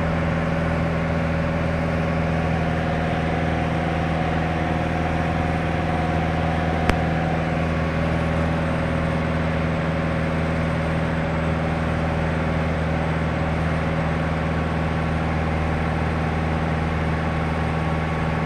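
Light touring aircraft's engine and propeller droning steadily, heard from inside the cabin. A single short click about seven seconds in.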